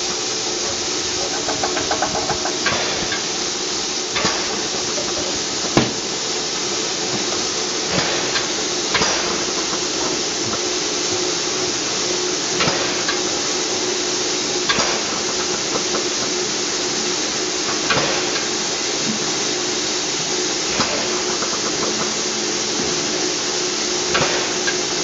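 Standing DR Class 99.23–24 2-10-2T steam locomotive hissing steadily with steam, with sharp metallic knocks every second or few.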